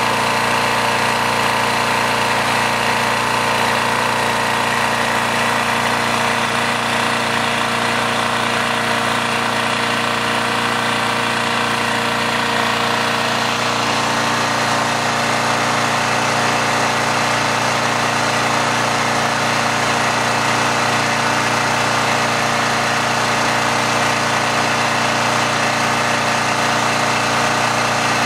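Coleman Powermate 1500 portable generator's engine running steadily at an even, constant speed.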